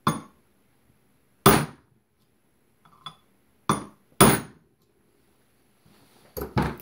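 A 3-pound drilling hammer strikes a steel pin punch, driving the taper pins out of an AR-15's pinned front sight base. There are five sharp metallic blows about a second apart, the third one lighter, then two quick knocks close together near the end.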